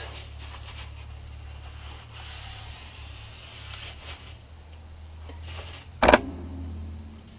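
Faint rubbing and rustling of a paper towel wiping excess acrylic paint off a brush, over a steady low hum, with one sharp knock about six seconds in.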